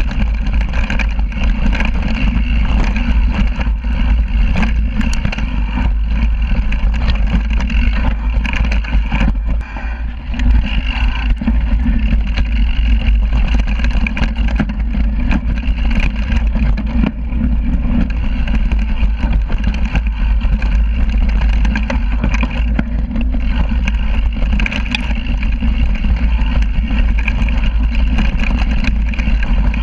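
Mountain bike descending a rocky dirt trail, heard from a rear-facing bike-mounted camera. There is a steady rumble of wind buffeting and knobby tyre noise, with many small clicks and rattles from the bike on rough ground.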